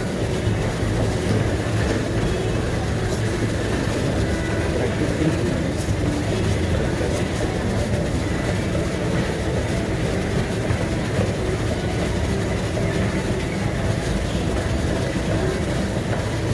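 Motorized treadmill running with someone walking on it: a steady low noise from the belt and motor, with footfalls on the deck.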